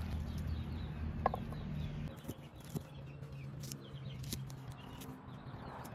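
Kitchen knife cutting young garlic stalks on a wooden chopping block in a handful of sharp knocks, with chickens clucking in the background.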